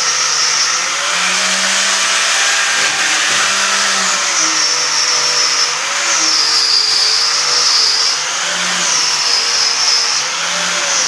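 Electric power tool running continuously with a loud hiss and a high whine that dips in pitch and recovers every second or two, as the motor is loaded and eased off.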